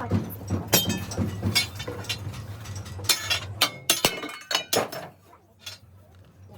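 Irregular clinks and knocks of metal parts being handled and struck during truck rim repair work, over a low steady hum that stops about halfway through.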